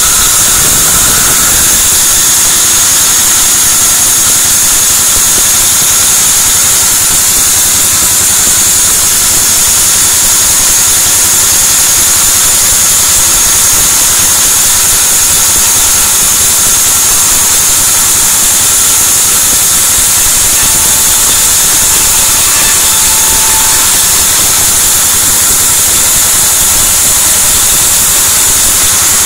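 Sawmill band saw running and cutting lengthwise through a white teak (gmelina) log: a loud, steady hiss with a high-pitched whine.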